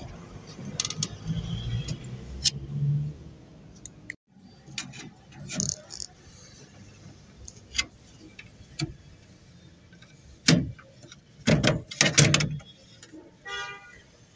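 Metal clicks and knocks of a screwdriver working on a Toyota HiAce sliding-door lock mechanism, which is damaged and will not open from the outside. A cluster of louder knocks comes about ten to twelve seconds in.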